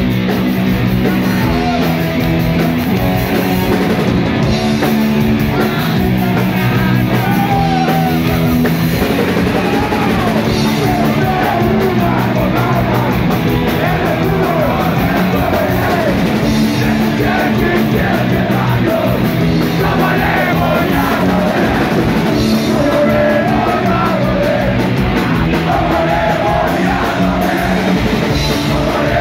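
Punk rock band playing live: distorted electric guitar, bass and drum kit at full volume, with a shouted lead vocal over the top.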